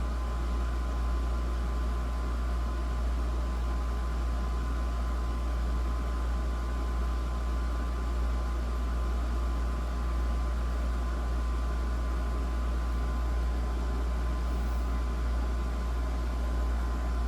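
2006 Holmes Blizzard 9-inch desk fan running steadily, its C-frame shaded-pole motor humming under an even rush of air from the blades, with a faint steady whine.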